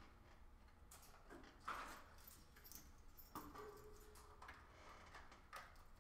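Near silence: room tone with a low hum and a few faint, irregular clicks and taps.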